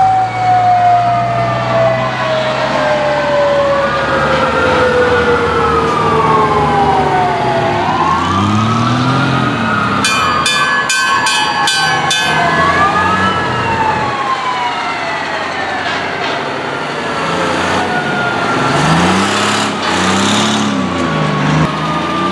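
Antique fire trucks passing with sirens going: one siren winds down in a long, slow falling tone while others wail up and down over it. There is a burst of rapid pulsed high tones about ten seconds in, and the truck engines rev as they go by.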